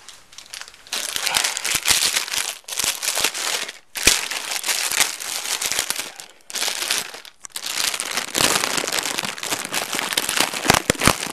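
Plastic packaging wrap crinkling and rustling as it is handled, in stretches of a second or two broken by short pauses.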